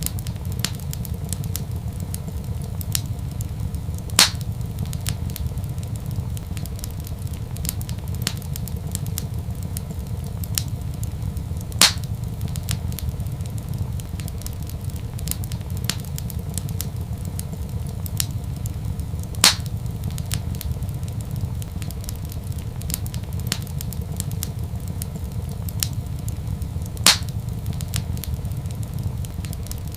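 Wood fire in a fireplace crackling over a steady low rumble, with many small ticks and four louder sharp pops at even intervals of about seven and a half seconds.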